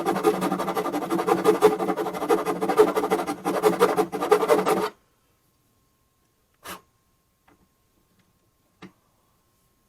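A small electric power tool runs with a steady hum and rasping for about five seconds, then stops suddenly. Two brief clicks follow.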